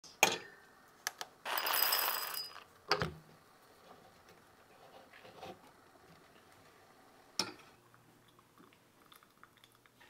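A glass dosing cup set down on an espresso machine's built-in scale with a sharp clink, then coffee poured into it in a rattling rush lasting about a second. A knock and a few light clicks of handling follow.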